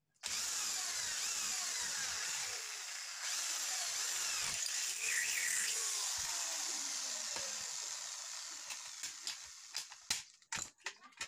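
Orange corded electric drill boring into a small metal bracket on aluminium tubing, running steadily for about eight seconds before tapering off. A few sharp clicks follow near the end.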